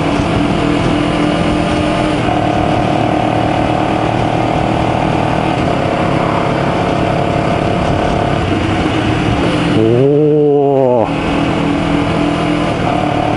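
Honda CBR250RR's parallel-twin engine heard while riding. It runs at steady revs that shift to new levels a few times as gears change through the quickshifter, with a short rev that rises and falls about ten seconds in. A constant rush of wind lies under it.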